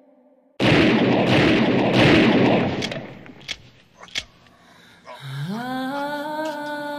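A sudden loud blast of noise breaks in, like a gunshot or crash with a long echo, and dies away over about two seconds. Two faint clicks follow. Near the end a low hummed note slides up in pitch and holds.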